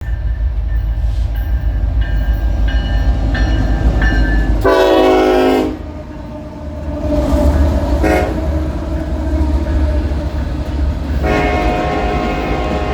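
Diesel locomotives of a freight train passing close by with a heavy, steady rumble. The air horn sounds a blast about five seconds in, a brief toot near eight seconds, and another long blast from about eleven seconds.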